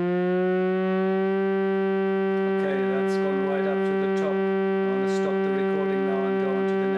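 Sine-sweep test tone from a signal generator, played through a Tannoy Monitor Silver 15-inch dual concentric speaker. The tone glides up a little, then holds steady at a low-mid pitch. From about two and a half seconds in, irregular clicks are heard over it.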